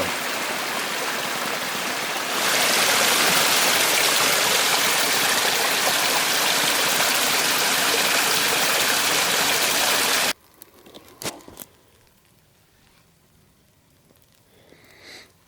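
Natural spring water running out of a hillside: a steady rush of flowing water that grows louder about two seconds in, then stops suddenly about ten seconds in, leaving near quiet with a few faint knocks.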